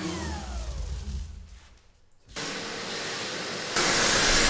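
An electric random orbital sander winding down, its whine falling in pitch and fading out over the first second and a half. After a short near-silent gap a vacuum cleaner starts with a steady rushing noise, louder from about four seconds in.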